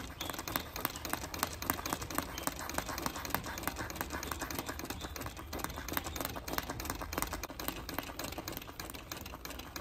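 Vintage treadle sewing machine stitching steadily, giving a rapid, even run of clicks from the needle mechanism as a hoop is moved under the needle for free-motion stitching.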